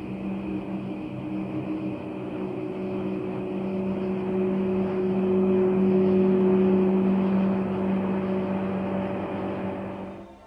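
A passing motorboat's engine: a steady hum that grows louder to a peak about six or seven seconds in, then fades and cuts off just before the end.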